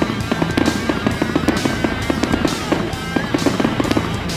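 Fireworks crackling and popping in a rapid run of sharp cracks, from crackle stars and ground fountains, with music playing along with the display.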